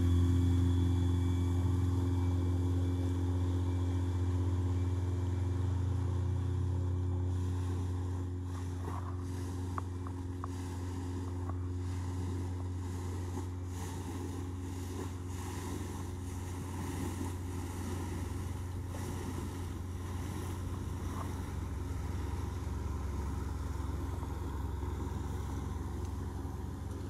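Motorboat engines passing along a canal: a steady low drone, loudest at the start and fading over the first several seconds as a small inflatable motorboat moves off. It then holds at a lower level while a motor cruiser goes by.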